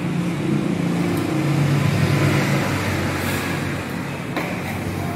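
An engine running steadily, its pitch drifting slightly up and down, with a faint click about four seconds in.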